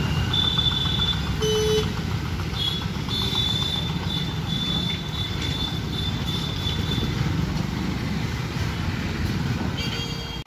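Road traffic crossing a railway level crossing: motorcycle, auto-rickshaw and light truck engines running steadily. A short horn beep comes about a second and a half in.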